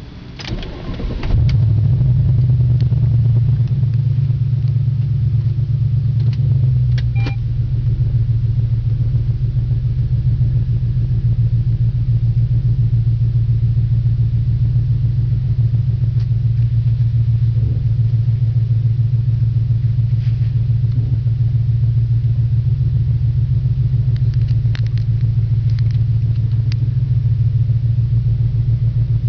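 Audi C5 RS6 twin-turbo V8 with catless downpipes started up about a second in, then idling steadily with a loud, deep exhaust drone.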